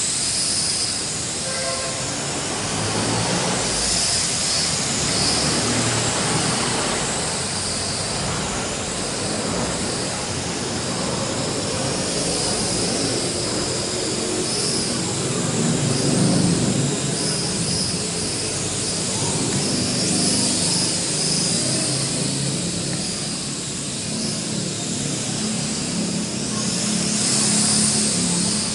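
L6036 quadcopter's four small electric motors and propellers whirring in flight, a steady buzzing whine whose pitch drifts up and down as the throttle changes.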